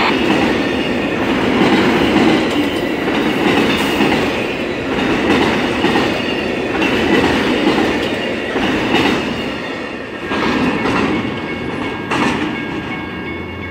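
Amtrak Auto Train's cars rolling past at speed, the wheels clicking over jointed rail in a rhythm of paired clacks. The sound fades toward the end as the last autorack cars move away.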